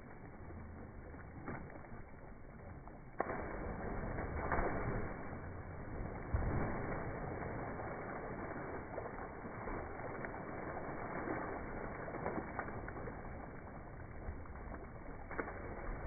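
Splashing lake water as children jump off a dock and swim, a noisy wash that starts sharply about three seconds in and surges several times after.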